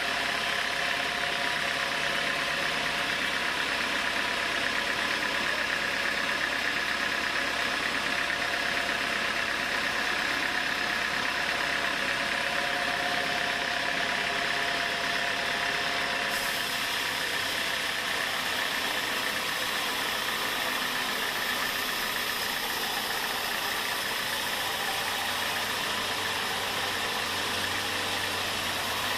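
Sawmill machinery running steadily, its engine and saw making a continuous mechanical drone. The sound changes abruptly about halfway through.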